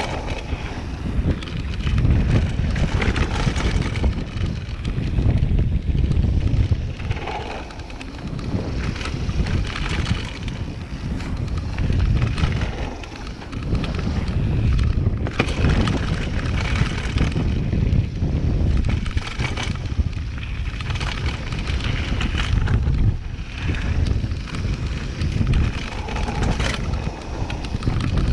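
Wind buffeting an action camera's microphone as a downhill mountain bike rolls fast over a dirt trail, with tyre noise on the dirt and occasional knocks and rattles from the bike over bumps.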